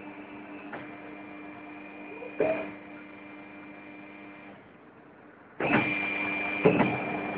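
Snap-on Quadriga tyre changer's electric drive running with a steady whine, with a clunk about two and a half seconds in. It drops away briefly about four and a half seconds in, then starts again louder a second later with another clunk.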